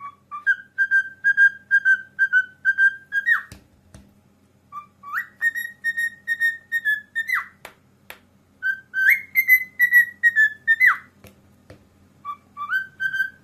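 Cockatiel whistling in four phrases of quick repeated notes, each phrase ending in a short downward slide.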